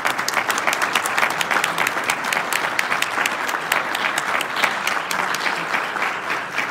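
Audience applauding, many hands clapping at once in a steady, loud round.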